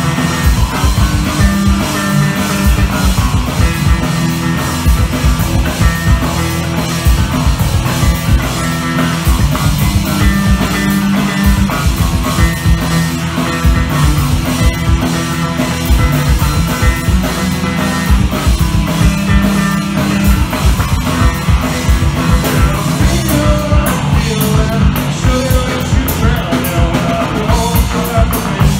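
A three-piece punk rock band playing live: electric guitar, bass guitar and drum kit, loud and continuous.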